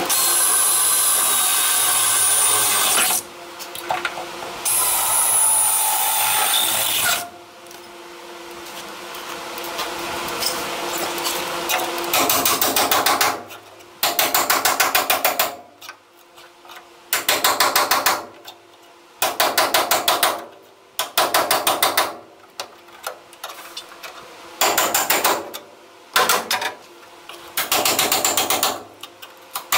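A Makita cordless drill runs against the sheet-metal A pillar with a whine that wavers in pitch, stopping briefly a few seconds in. From about twelve seconds on, a hammer beats the body panel in quick bursts of rapid taps, each burst about a second long with short pauses between.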